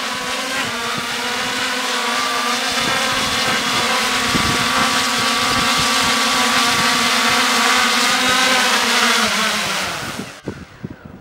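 Electric octocopter's eight motors and propellers hovering with a steady multi-tone whine that grows a little louder as it comes close. About ten seconds in, the pitch falls and the motors spin down and stop.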